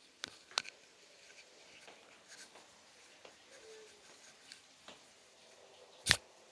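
Kitchen handling noise: a plastic bag rustling and a few light clicks, then one sharp knock about six seconds in, the loudest sound.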